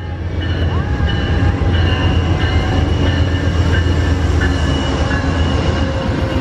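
Amtrak passenger train led by a Genesis diesel locomotive passing at speed: a steady heavy rumble of wheels on rail, with thin high-pitched whining tones that come and go.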